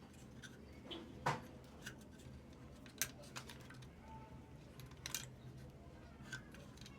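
Irregular clicks and light taps of small hard parts being handled on a washing machine's mechanical timer under repair, the sharpest about a second in, three seconds in and five seconds in.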